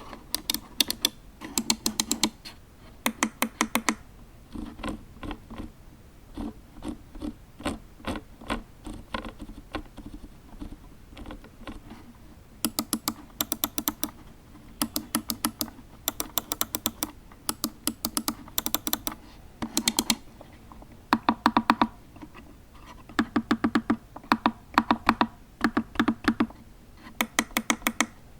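Razer DeathAdder V2 gaming mouse buttons clicking in quick bursts of several clicks at a time, with quieter stretches between the louder bursts.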